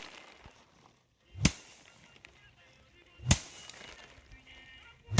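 Bundles of rice stalks swung and beaten against a hard surface to thresh the grain. Each stroke is a short swish ending in a sharp thwack, three strikes at an even pace of about one every two seconds.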